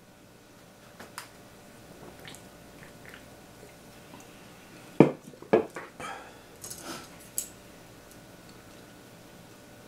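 Tableware being handled on a wooden table as a meal starts: a few light clicks, then two solid knocks about half a second apart near the middle, followed by a short run of clinks.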